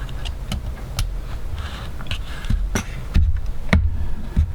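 Irregular small clicks and taps from handling a compact camera and small tools during disassembly, with a few low thumps and a low rumble. The sharpest clicks come a little under three seconds in and near four seconds.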